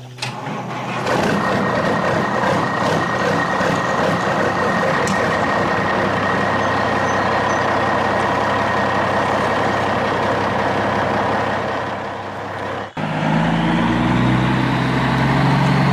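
A large truck's engine running steadily, a dubbed-in truck sound. It cuts off abruptly about 13 seconds in and background music starts.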